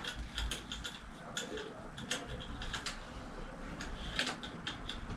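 Irregular small clicks and ticks of a bicycle brake cable being fitted back into a plastic handlebar brake lever.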